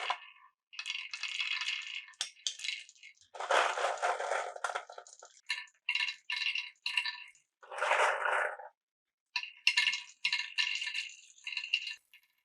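Glass marbles rolling and clattering through a Cuboro wooden marble run, in a string of short bursts broken by brief gaps, with sharp clicks and light ringing clinks between the rolls.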